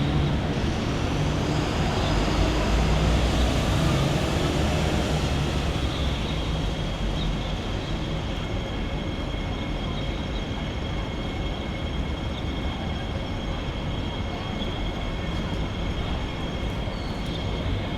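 Steady room ambience of a small hair salon: a low rumble, heaviest in the first few seconds, that sounds like traffic or a vehicle passing, then settles under a steady hum with a faint high-pitched whine.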